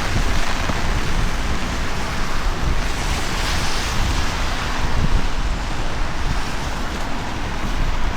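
Wind buffeting the microphone in a heavy, gusty rumble over an even hiss of rain, with a louder spell of hiss about three seconds in.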